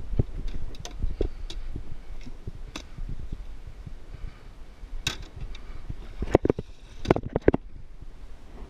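Irregular sharp clicks and knocks from a fly rod and reel being handled in an aluminium boat, with a cluster of louder knocks a little past the middle, over a steady low rumble.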